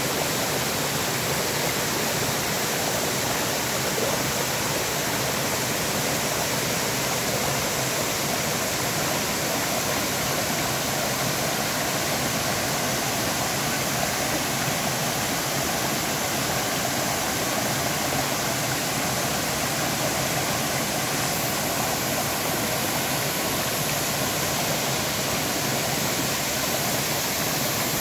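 Waterfall and stream water rushing steadily over rocks, an even, unbroken sound of falling water.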